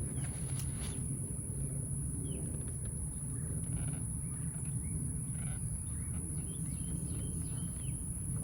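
Scattered short bird chirps over steady outdoor background noise with a low rumble and a constant high, thin hiss.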